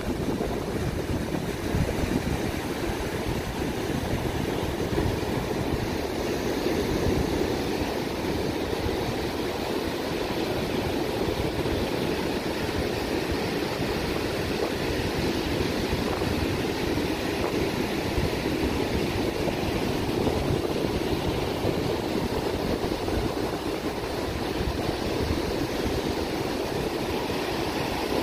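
A motorboat under way: a steady running noise of the engine mixed with water rushing along the hull.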